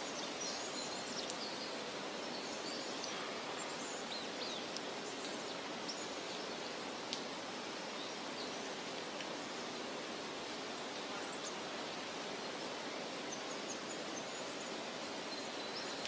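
Woodland ambience: a steady rushing hiss, like wind through leafy trees, with scattered short, high bird chirps.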